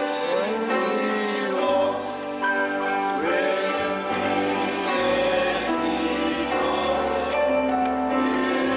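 Gospel worship music: singing with sustained instrumental accompaniment.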